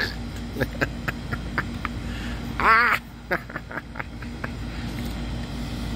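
A puppy lets out one short, wavering whiny growl during rough play, about halfway through, among small clicks and rustles of handling. A steady low hum of background noise runs underneath.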